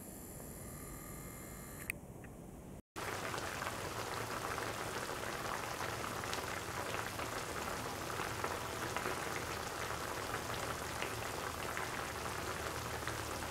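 Food cooking in a hot pan, a dense steady crackle of sizzling and bubbling that begins after a cut about three seconds in; before the cut only faint steady high tones.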